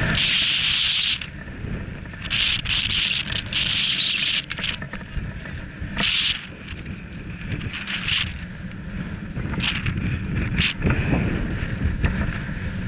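Mountain bike descending a loose gravel and rocky trail, with heavy wind buffeting the microphone and a steady low rumble. Repeated short hissing bursts come in and out, longest in the first few seconds.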